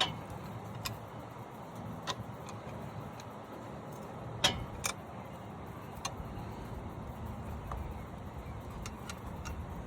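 Scattered light metallic clicks and clinks from a C-clamp pressing a brake caliper piston back into its bore, the sharpest about four and a half seconds in, over a steady low background rumble.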